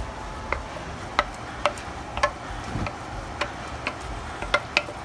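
A spoon clinking against a bowl while stirring ground beef and rice together, in sharp ringing knocks about two a second at uneven spacing.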